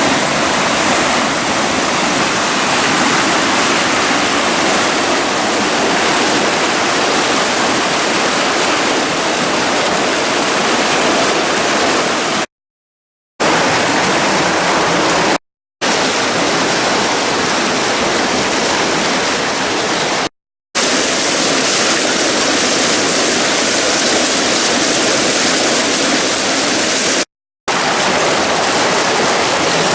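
Flood-swollen creek rushing fast and steady in high water after heavy rain, broken by four short silent gaps.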